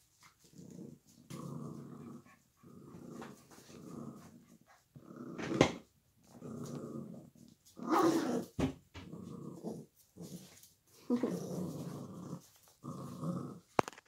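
Puppies play-growling as they wrestle, a string of short rough growls, each under a second, with brief gaps between them. A sharp knock sounds about five and a half seconds in.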